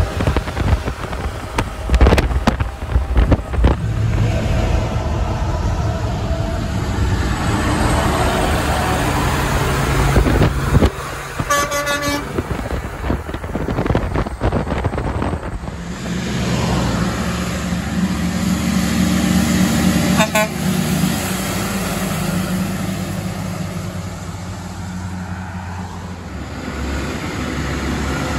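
Big trucks passing and sounding their air horns: an International 9900i with dual Hadley air horns, then a Freightliner FLD120 with a Grover air horn. The horn blasts are mixed with diesel engine and tyre noise.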